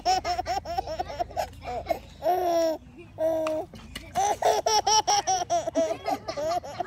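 Baby laughing in rapid bursts, several short laughs a second, broken in the middle by two longer drawn-out squeals.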